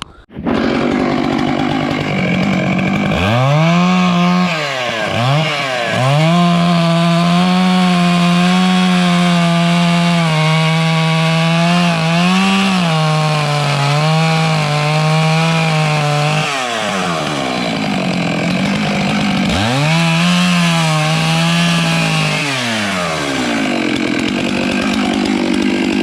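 Two-stroke chainsaw cutting into a melaleuca log to level it. It revs hard for a long cut of about ten seconds with small wavers under load, drops to idle, then revs again for a shorter cut of a couple of seconds before idling.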